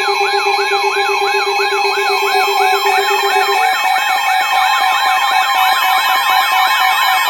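Layered alert siren sounds: a fast yelping siren sweeping up and down about four times a second over steady alarm tones. A low tone drops out about three and a half seconds in, and a second, higher sweeping siren joins soon after.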